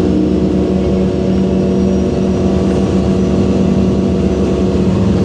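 Orion VII NG hybrid bus drivetrain (Cummins ISB diesel with BAE HybriDrive electric drive) humming at a steady pitch while the bus cruises, heard from inside the passenger cabin.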